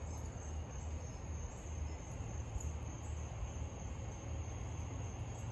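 Crickets chirring in a steady high trill, over a low rumble.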